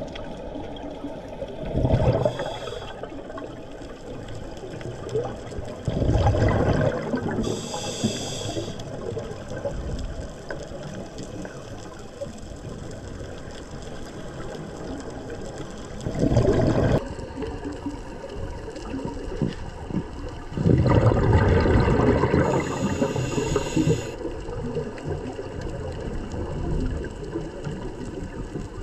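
Scuba diver breathing through a regulator underwater: bursts of exhaled bubbles several times, a few seconds apart, with short hissing inhalations between, over a steady underwater rumble.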